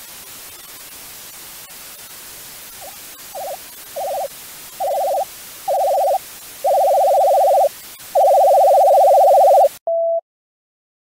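Steady TV static hiss with a series of warbling electronic beeps that grow longer and louder, about seven of them; the static cuts off suddenly near the end, followed by one short steady tone.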